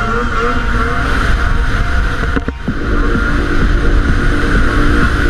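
Snowmobile engine running at speed along a trail, a steady whine over a low rumble. It drops briefly about two and a half seconds in, then comes straight back.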